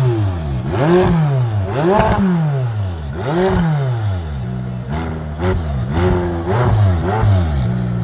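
McLaren twin-turbo V8 revved repeatedly while standing still, its pitch climbing and falling back about every second and a half. It settles briefly about halfway through, then gives a few shorter blips.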